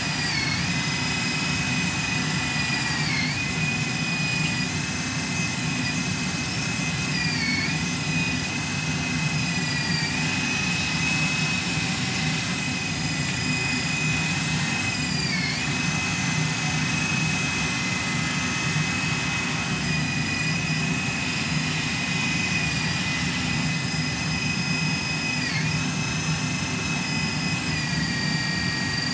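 Electric drive motors and gearing of a radio-controlled wheel loader running with a steady high whine over a low hum. The whine dips briefly in pitch several times as the loader drives and works its bucket.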